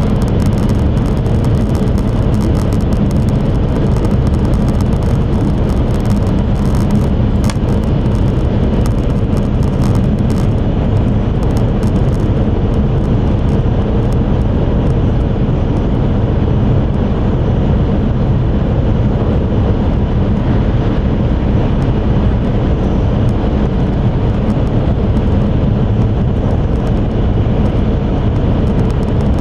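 Steady loud rumble inside the cabin of an E5 series Shinkansen running at speed, the running noise of the train heard from a passenger seat. Faint high crackling ticks sit over it during the first dozen seconds or so.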